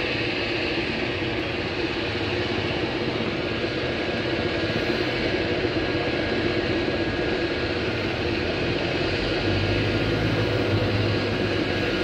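Helicopter flying overhead: a steady drone of rotor and engine, with a low hum growing stronger near the end.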